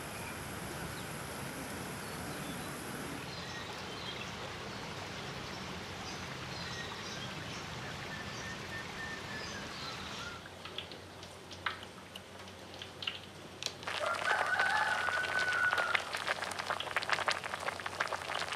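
Neighbourhood ambience with birds chirping. In the last few seconds a pot of chicken bubbles and spits with dense crackling, and a rooster crows once over it.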